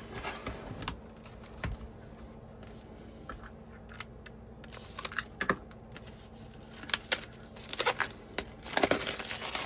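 Hands unpacking a CD single: its small cardboard box, sleeve and disc handled, giving scattered light clicks, taps and crinkles. They come in clusters around the middle and near the end.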